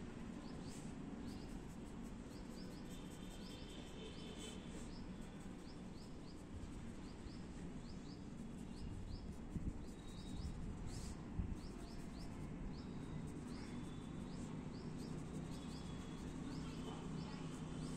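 A small bird chirping over and over, short rising chirps about twice a second, over a steady low background hum.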